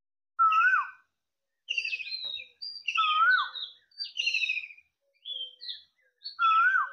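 A bird singing: a whistled note that rises and then drops away, given three times, with quicker, higher chirps in between.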